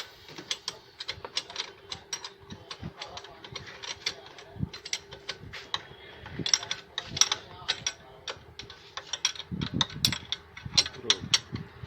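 Hand tools working on a car's front wheel hub assembly: sharp metallic clicks in short, irregular runs, of the kind a socket ratchet makes.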